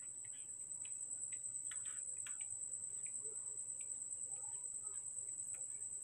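Crickets trilling in a steady, high, rapidly pulsing tone, with faint soft clicks from a newborn baby monkey suckling at a milk bottle.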